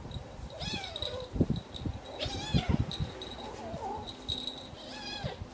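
Domestic cat meowing about four times, each meow a pitched call that bends up and down, with a few low thumps between the meows.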